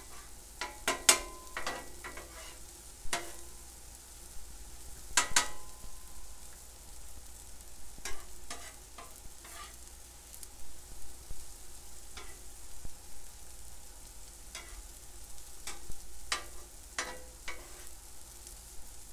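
Sliced onions sautéing and sizzling on a Blackstone steel flat-top griddle while a metal spatula scrapes and taps the plate, some strikes ringing briefly. The sharpest clacks come about a second in and about five seconds in.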